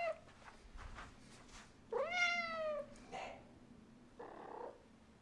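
Domestic cat meowing in greeting to its owner: the tail of one meow at the very start, then one long meow about two seconds in, rising and then slowly falling in pitch, followed by a short call and a softer, breathy one.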